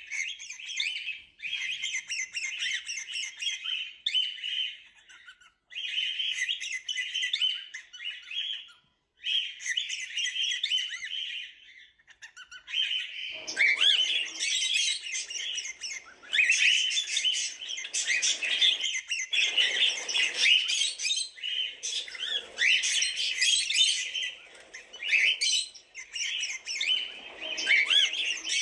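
Pet cockatiels chirping and chattering in bouts of quick high calls, with brief pauses in the first half. From about halfway the calling grows louder and busier, with harsher squawk-like calls mixed in.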